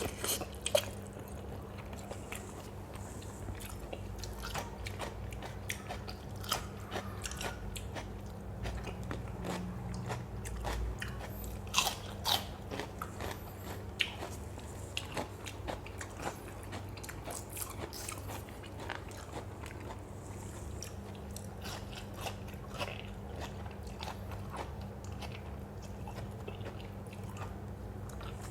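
A person chewing and crunching a mouthful of som tum made with crisp lotus stems and fresh shrimp, close to the microphone, with irregular crisp crunches throughout. A steady low hum runs underneath.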